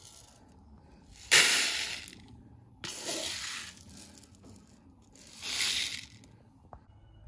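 Dry green grams (mung beans) poured from a plastic cup into a plastic bowl, a rattling hiss of beans three times, the first pour the loudest.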